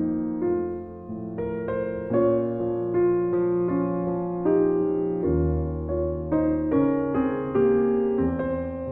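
Solo grand piano playing a melody of separate struck notes over held bass notes, a new note or chord every half second or so.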